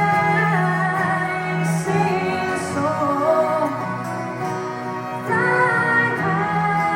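Live performance of a slow, tender ballad: female voices singing long held notes over instrumental accompaniment.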